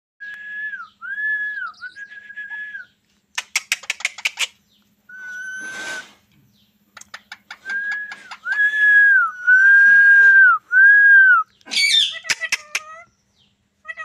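Green parakeet whistling a series of clear, steady notes, each sliding up at the start and dropping off at the end, the later ones held longer. Short bursts of rapid clicking come between the whistles.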